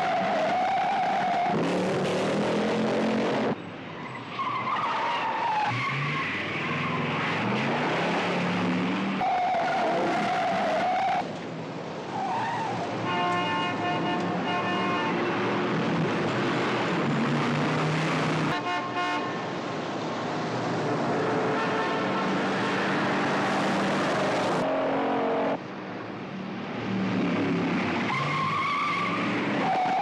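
Car engines revving hard and tires squealing as cars race and swerve through city traffic, with a car horn blaring around the middle.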